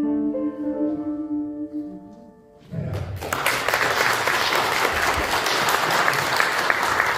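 The last notes of the piece on a Kawai piano ring out and fade away, then an audience breaks into applause about three seconds in and keeps clapping.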